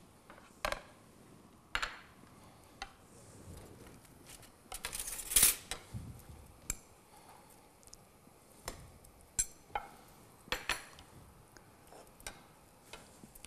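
Kitchenware clatter: a wooden spoon knocking and scraping against a plate and a steel pot as raw meatballs are pushed off the plate into the pot. It comes as scattered single clinks and knocks, loudest in a short clatter about five seconds in.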